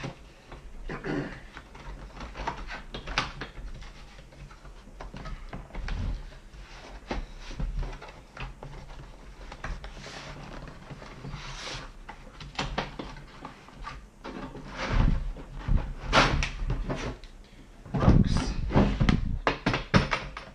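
Cardboard box being opened and a hard plastic tool case slid and lifted out of it: a run of cardboard scrapes, rustles and plastic knocks, loudest over the last five seconds or so.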